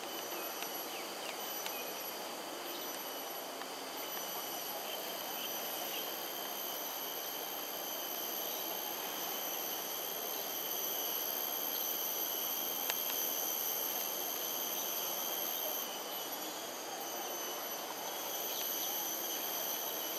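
Steady outdoor insect chorus: several continuous high-pitched buzzing tones held without a break, over a low even background hiss.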